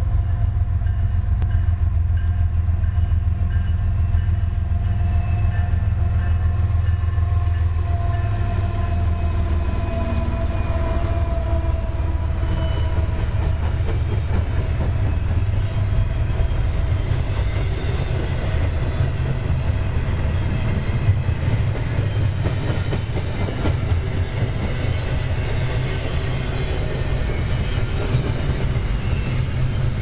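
GE diesel-electric locomotives, a BNSF Evolution-series unit and a CSX AC4400CW, running under power as they pass. Their deep engine drone, with a few tones slowly falling in pitch, gives way about halfway through to the steady rumble and wheel clatter of double-stack container cars rolling over the rails.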